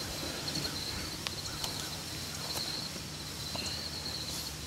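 Insects chirping in a steady, high-pitched pulsing chorus, with a few faint ticks.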